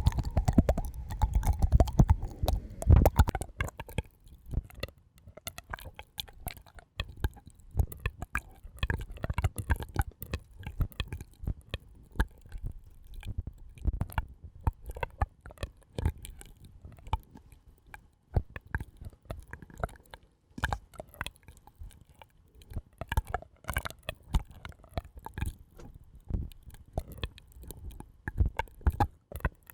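Close-miked ASMR trigger sounds: dense, irregular soft clicks and crackles, with heavier low thumps in the first few seconds.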